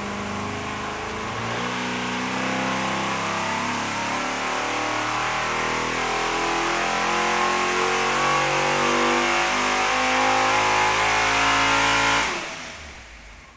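436-cubic-inch small-block Mopar V8 running under load on an engine dyno, growing steadily louder, then dying away quickly about twelve seconds in.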